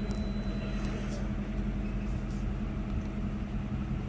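Steady low mechanical hum, several fixed low pitches held without change.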